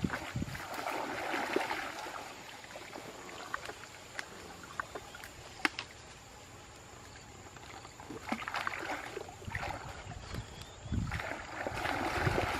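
Water splashing and sloshing in several spells, quieter in the middle, with a few sharp clicks in between.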